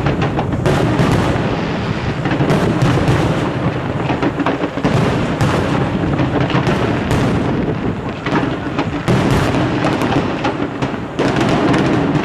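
Aerial firework shells bursting in a loud, dense barrage, many reports overlapping without pause, growing louder about a second before the end.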